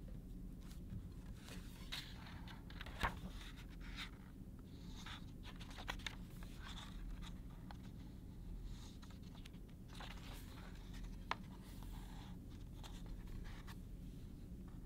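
Hardcover picture book being opened and its paper pages turned, with soft rustling and sliding and a few light clicks, the sharpest about three seconds in.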